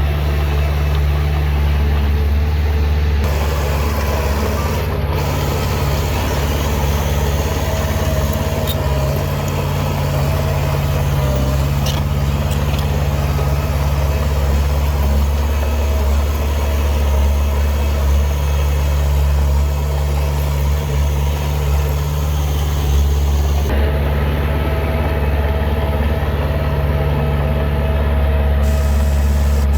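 Heavy earthmoving machine's diesel engine running steadily, a deep, even drone with no change in speed.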